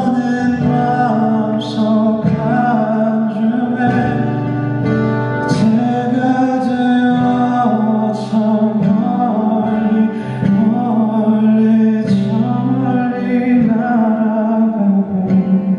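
A male singer sings a slow, held vocal line over guitar accompaniment.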